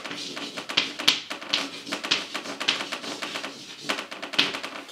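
Chalk tapping and scratching on a blackboard as a word is written by hand: a quick, uneven run of short sharp taps and scrapes.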